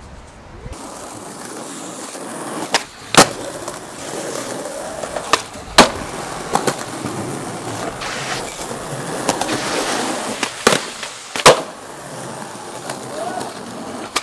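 Skateboard wheels rolling over street pavement, with sharp clacks of the board popping and landing, mostly in pairs about half a second apart.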